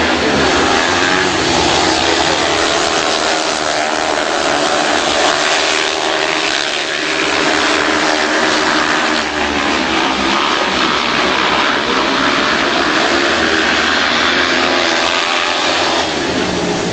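Speedway motorcycles' single-cylinder 500 cc engines racing at high revs, their pitch rising and falling.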